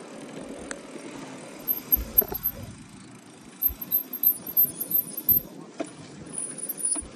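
Bicycle rolling along a tarmac path, its tyre and wind noise picked up by a handlebar-mounted phone, with bursts of rattling and clinking from the bike and mount over bumps about two seconds in and again from the middle of the stretch.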